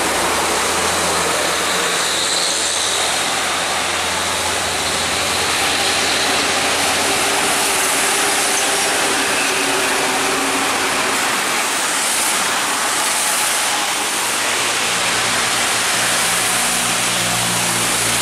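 Large trucks driving past on a rain-soaked road: engines running with a low hum and tyres hissing on the wet surface, under a steady rush of rain. A second truck's engine note comes in near the end.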